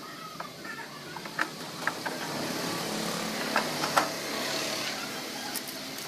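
Hand tools working on the sheet-metal cabinet of a top-loading washing machine: a few sharp metallic clicks and knocks, the loudest about a second and a half in and two close together near the four-second mark, over steady background noise.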